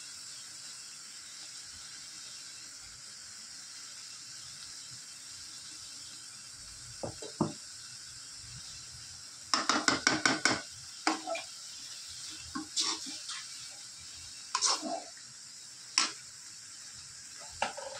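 Perforated steel spatula clattering and scraping against a metal kadai while stirring chilli powder into chicken pieces, over a steady hiss of the chicken frying in oil. After a few seconds of only the hiss come a couple of clicks, then a quick run of about eight strikes, then scattered single knocks.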